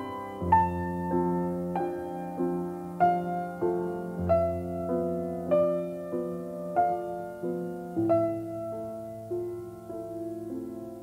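Background piano music: an evenly paced line of struck notes, about one every half second, over low held bass notes.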